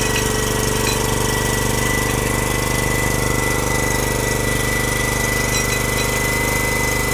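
Petrol pull-start jackhammer's engine running steadily at idle, not yet breaking ground, with a thin steady high whine over it.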